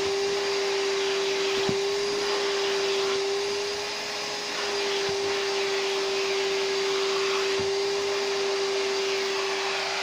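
Numatic George GVE370 wet-and-dry vacuum cleaner running with a steady whine as its wet-pickup nozzle is pushed over damp carpet, sucking up spilled juice. The sound dips slightly about four seconds in.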